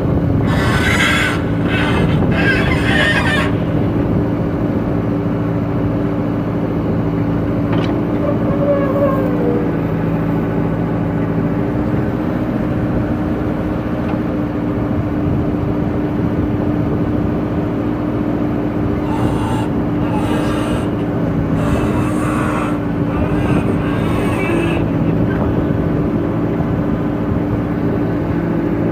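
The diesel engine of a JCB 3DX backhoe loader running steadily under load as its rear bucket digs into loose sandy soil. Two spells of scraping, hissing noise come from the bucket cutting and scooping the soil: one about a second in that lasts some three seconds, and several short ones in the last third.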